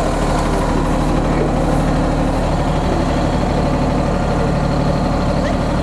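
Small diesel tractor engine idling steadily.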